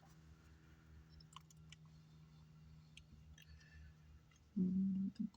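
Faint, sparse clicks and taps of hand tools on a circuit board during soldering, over a steady low electrical hum. Near the end comes a short hummed voice sound.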